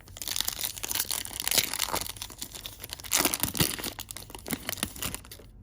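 Wrapper of a trading-card pack crinkling and tearing as the pack is ripped open and handled, a dense crackle of small clicks loudest about a second and a half in and again around three seconds in.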